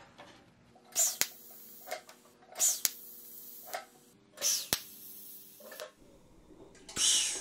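TIG welder striking a series of short arcs on 1/8-inch stainless steel coupons: four brief hissing buzzes about a second and a half apart, each ending in a sharp click, over a steady low hum.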